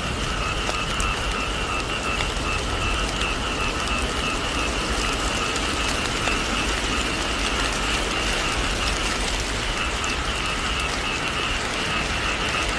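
Steady heavy rain falling on a thatched roof and a rice field. A continuous rasping trill at two pitches runs under the rain throughout.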